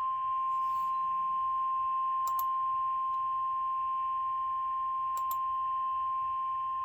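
NOAA Weather Radio's 1050 Hz warning alarm tone: a single steady tone over light radio hiss, the signal that a warning message is about to be read. A few faint clicks sound over it.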